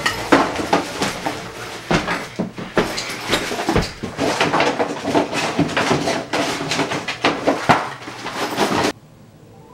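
Rummaging through a bag: rapid, irregular rustling and knocking of fabric and papers being handled close by, which cuts off suddenly near the end.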